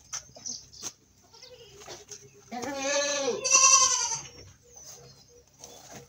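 Goat bleating: two calls back to back about two and a half seconds in, the second louder and higher.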